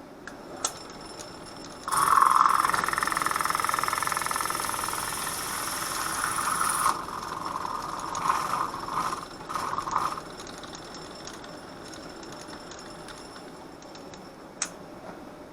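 Electric drill running hard for about five seconds, then in a few short bursts, boring out a hole in metal.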